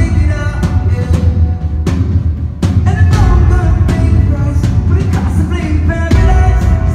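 Rock band playing live at full volume: pounding drums and heavy bass under a sung vocal line, with a brief drop in loudness about two and a half seconds in.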